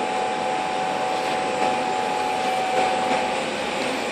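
Steady machine noise, a constant airy drone with a fixed mid-pitched whine running through it, like a fan or blower.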